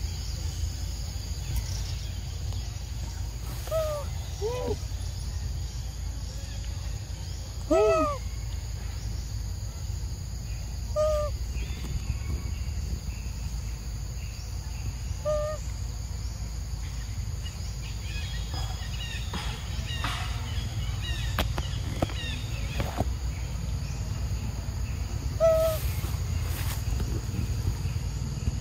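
Short arched animal calls, each well under a second, heard about six times at irregular intervals of several seconds, over a steady low rumble.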